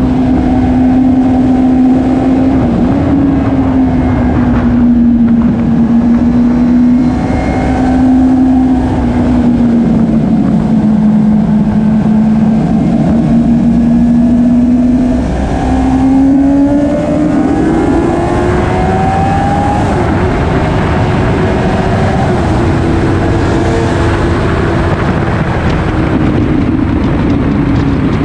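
Onboard sound of a minitwin race motorcycle's twin-cylinder engine at high revs on track, mixed with wind rush. The engine note holds fairly steady and sags a little through the corners. It cuts briefly about fifteen seconds in, then climbs as the bike accelerates and stays higher.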